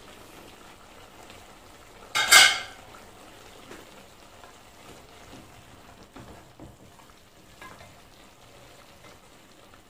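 A short, loud clatter about two seconds in, then soft sizzling from a steaming aluminium pot of chicken and sem beans, with the light scrape and tick of a wooden spoon stirring it.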